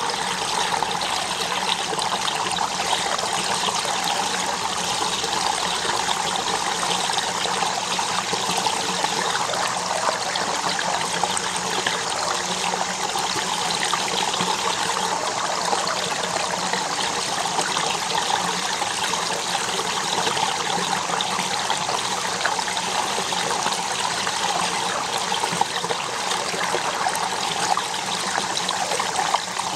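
Shallow water running steadily over a sandy streambed, an even trickling rush with no breaks.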